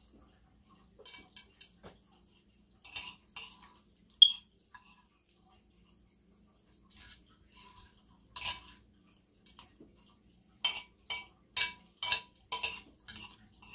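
Eating utensil clinking and scraping against a plate as the last of the food is scooped up: scattered single clinks, then a quick run of about six clinks near the end.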